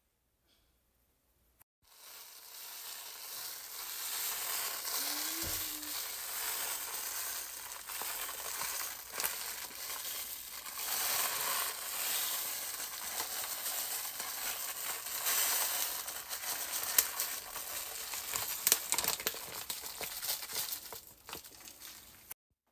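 A pot of jollof rice sizzling on the stove: a steady hiss with scattered crackles, starting about two seconds in and cutting off shortly before the end, with a few sharper clicks late on.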